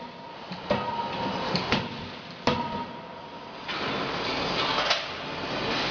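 Metal clanks and knocks at a forging press as a hot workpiece is handled on the die, about four sharp strikes. After that a steady hiss sets in.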